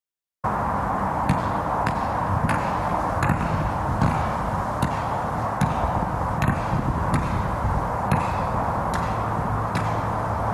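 A 200-shot firework cake firing single shots in a steady sequence: a sharp pop about every three-quarters of a second over a steady hiss, starting abruptly half a second in.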